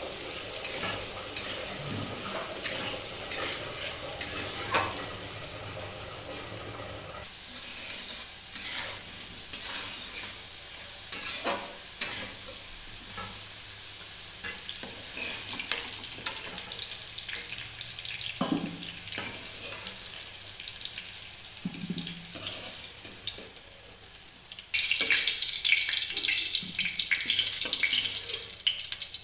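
Diced potatoes sizzling as they fry in oil in a metal kadai, with a metal spatula scraping and clicking against the pan as they are stirred. The sizzling gets louder near the end.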